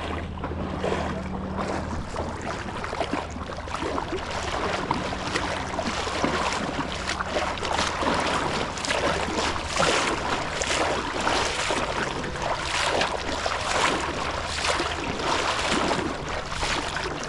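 Steady rush of moving river water with irregular small splashes around a kayak.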